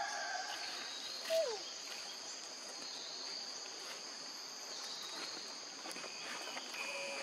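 Steady, high-pitched insect chorus, with a single short falling squeak about a second and a half in.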